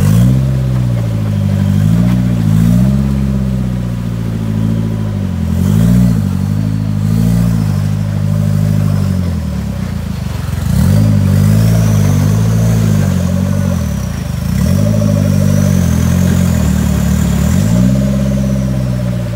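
Modified off-road 4x4's engine revving hard under load in deep mud. It comes in about five surges and drops back between them, with the longest surges in the second half. A faint high whine rises slowly over the last several seconds.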